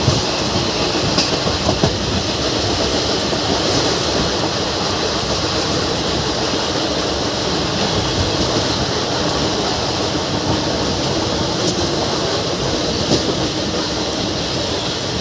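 Passenger express heard from its own open coach doorway, running through a station at speed without stopping. The wheels make a steady rumble on the rails, with a few faint clicks.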